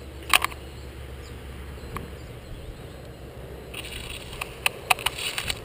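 Irregular sharp clicks and snaps: a double click just after the start, a single one about two seconds in, and a quick cluster of them with light rustling in the last two seconds.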